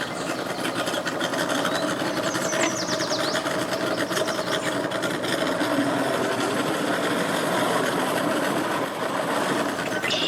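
Boat motor running steadily at low speed with a rattly, even chug while the boat manoeuvres at the ramp.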